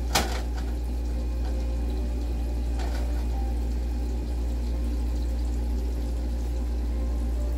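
Food sizzling steadily in a skillet on an electric stove, over a constant low hum. A sharp knock of a utensil on the pan comes just after the start, and a fainter one about three seconds in.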